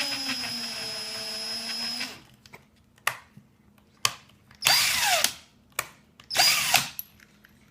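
Small electric drill fitted with a drill bit, run for about two seconds, then two short bursts with clicks between them, working into the plastic of a calculator. The motor whines, and its pitch falls each time it winds down.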